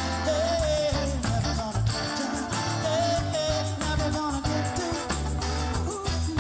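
Live band playing a song, with a sung lead melody over bass and drums.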